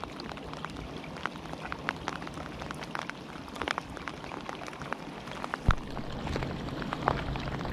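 Rain falling: a steady hiss with many scattered sharp ticks of drops landing close by, and one louder tap about three-quarters of the way through.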